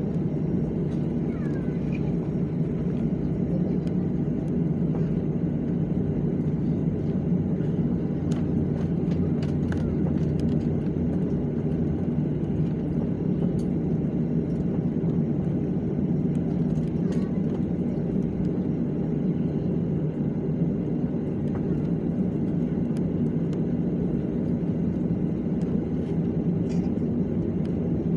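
Jet airliner's engines and airflow heard inside the passenger cabin: a steady low drone that holds an even level, with a few faint ticks.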